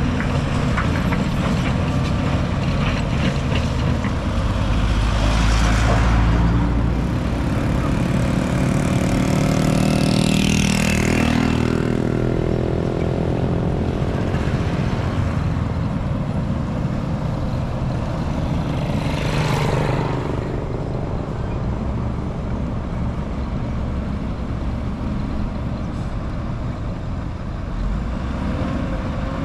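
Heavy diesel construction machinery (dump trucks and bulldozer) running steadily with a deep engine rumble. Three short bursts of hiss rise over it, about 6, 11 and 20 seconds in, the middle one with a gliding squeal.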